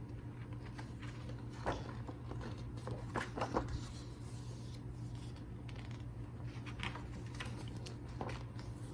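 Soft handling noise of paper and card packaging: a few light rustles and taps, the loudest about three and a half seconds in, over a steady low hum.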